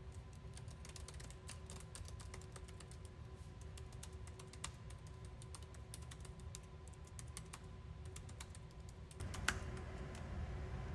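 Typing on a computer keyboard: an uneven run of light key clicks over a low steady hum. Near the end the background gets louder and one sharper click stands out.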